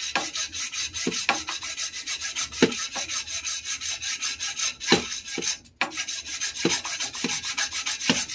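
Lenox hacksaw cutting through an old metal water pipe, with fast, even back-and-forth rasping strokes. There is a brief pause about six seconds in.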